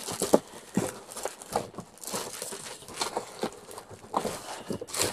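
Cardboard and plastic packaging rustling and scraping, with irregular light knocks, as a tightly packed item is worked loose and pulled out of a cardboard box.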